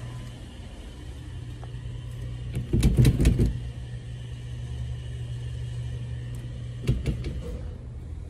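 A steady low hum, with a quick run of knocks about three seconds in and a few more about seven seconds in.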